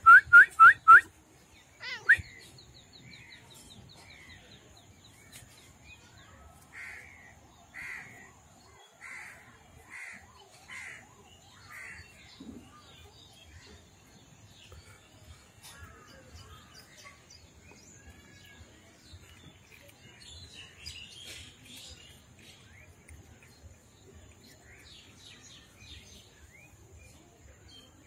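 Birds calling. It opens with a quick run of five loud, rising whistled notes. Then comes a series of about seven harsh calls, roughly a second apart, with scattered chirps over a faint steady high hum.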